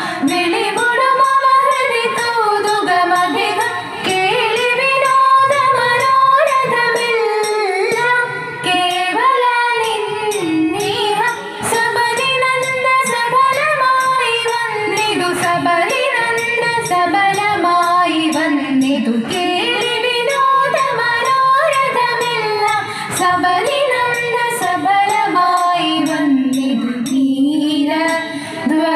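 Thiruvathira song: female voices singing a slow, winding Carnatic-style melody with musical accompaniment, the music for a Thiruvathira group dance.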